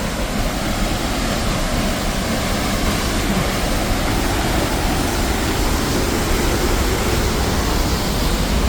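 Steady rush of a large waterfall close by, heard through a phone's microphone, growing slightly louder.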